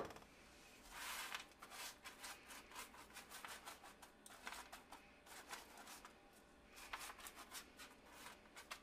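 Silicone spatula spreading loose granola across a parchment-lined baking sheet: faint, scratchy rustling and scraping in many short strokes.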